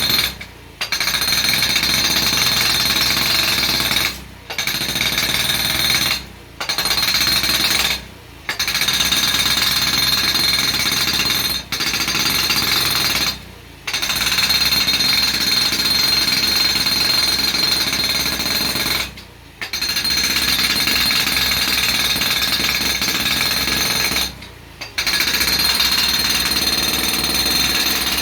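JCB Beaver hydraulic breaker with a compactor foot, hammering rapidly to compact gravel scalpings. It runs in loud stretches of a few seconds, stopping briefly between them several times.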